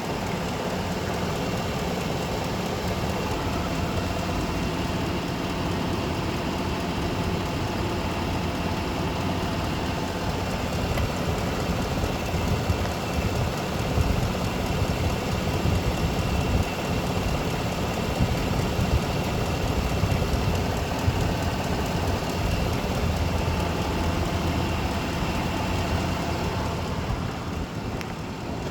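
Vehicle engine idling steadily with a ticking noise, which the owner says began only after an oil change.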